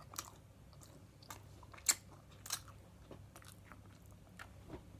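A boy chewing a mouthful of large marshmallow, with scattered soft wet mouth clicks and smacks; the sharpest comes about two seconds in.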